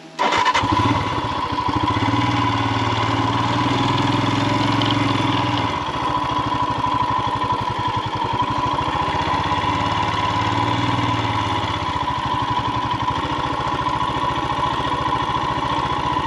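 Royal Enfield Himalayan's single-cylinder engine starting up, then running at low speed as the motorcycle rolls slowly along a dirt track.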